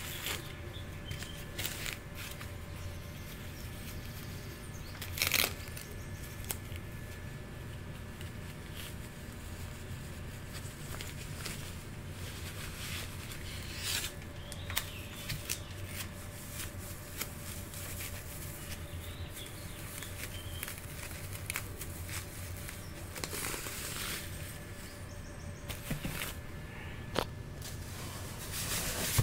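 Plastic packing sleeve rustling and crinkling as it is pulled off a guitar neck, in intermittent handling noises with the loudest crinkle about five seconds in and several more near the end, over a steady low hum.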